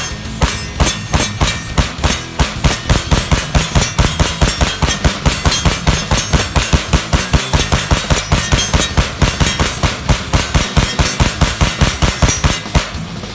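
PSA AK-P pistol firing a long, rapid string of shots from a drum magazine, about five a second in an uneven rhythm, stopping near the end.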